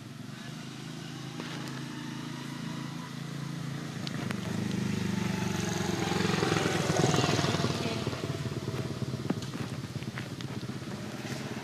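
A motor vehicle's engine running, growing louder to a peak about seven seconds in and then fading, as a vehicle passing by does.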